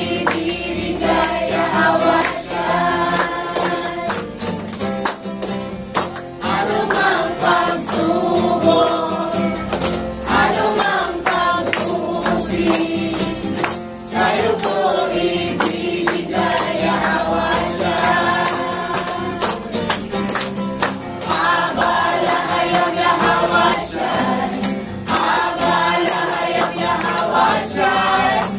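Congregation singing a Tagalog worship song together, with hand-clapping in time.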